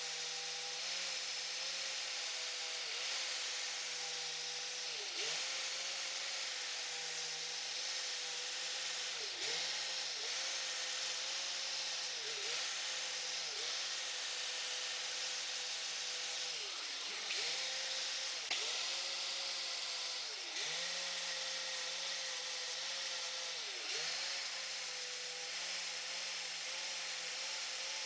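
An angle grinder with an abrasive disc grinds a steel wrench jaw: a steady motor whine over a hissing grind. The motor's pitch sags briefly again and again as the disc is pressed into the metal, then picks back up.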